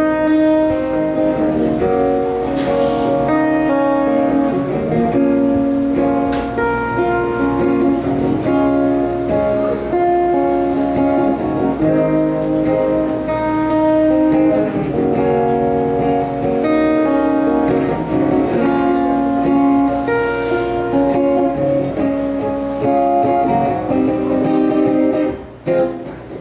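Acoustic guitar strumming and picking the chords of a reggae-pop song's intro, with no singing.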